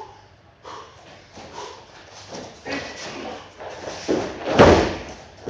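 Bare feet shuffling and gi cloth rustling on a dojo mat, then, about four and a half seconds in, a loud swish and thud as a partner is thrown onto the mat.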